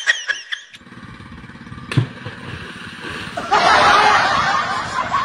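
A low pulsing rumble with a single sharp click, then from about three and a half seconds in, loud churning and splashing of water in a creek.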